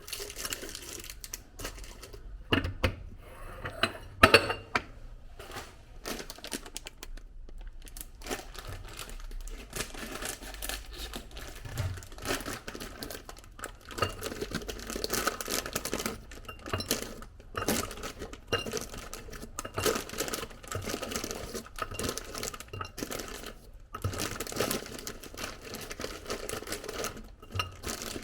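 Household items being handled and packed away: plastic packaging crinkling, with frequent small clinks and knocks of containers and dishes.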